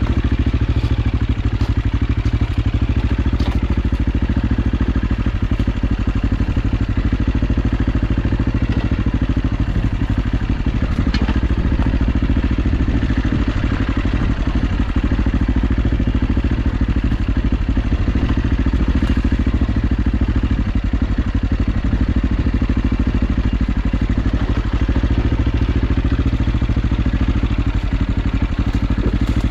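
AJP PR7's single-cylinder engine running steadily under way off-road, with occasional short clicks and knocks over it.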